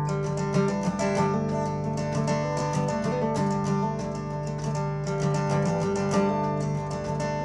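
Acoustic guitar played solo in a steady rhythm, each stroke ringing into the next: the instrumental opening of a folk song.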